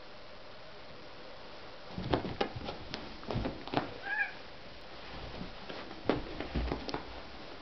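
A kitten gives one short, high mew about four seconds in, among scattered knocks and rustles as the kittens scramble on the carpet after a wand toy.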